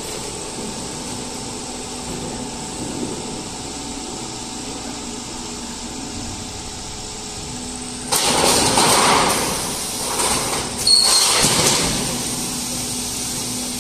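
Steel roofing-sheet roll forming line running with a steady hum. About eight seconds in come loud noisy bursts, then another around eleven seconds, as the stacker's flaps tip the finished sheet down onto the pile.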